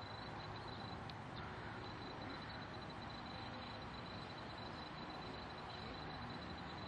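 Faint, steady outdoor background hiss with a thin, high, constant whine; no distinct sounds stand out.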